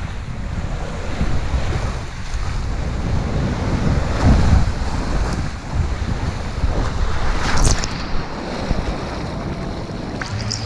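Water rushing along an inner-tube water slide during the ride, with heavy wind buffeting on the microphone.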